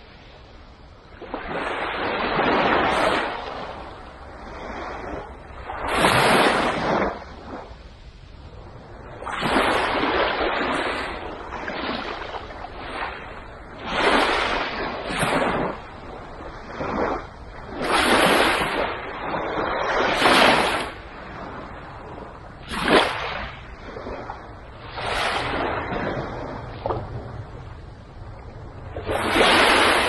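Gentle surf on a sandy beach: small waves breaking and washing up the sand, each a rush of foam that swells and fades, one every two to four seconds.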